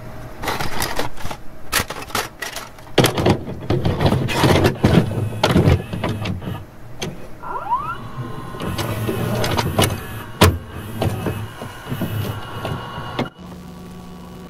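Videocassette recorder taking in a tape and loading it: a run of clicks, clunks and motor whirring with a short rising whine near the middle, settling into a steady low hum near the end as playback starts.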